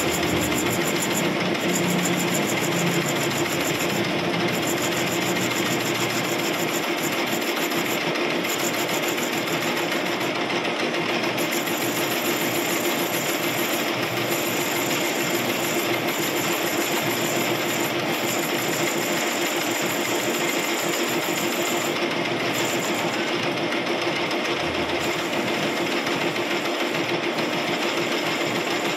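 Metal lathe running with the chuck spinning and a cutting tool turning a gear blank: a steady, even mechanical running noise with a constant hum.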